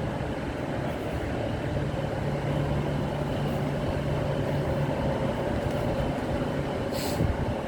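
A train pulling out of the station: a steady low rumble with a held hum from the train. There is one short sharp noise near the end.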